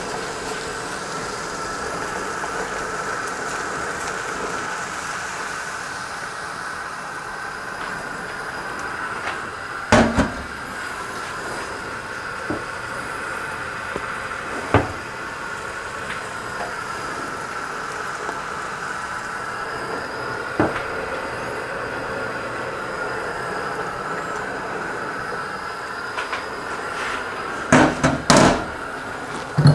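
A pot of water with ramyun noodles boiling on a gas stove, giving a steady hiss. A few sharp knocks and clinks of a cooking utensil against the pot are scattered through it.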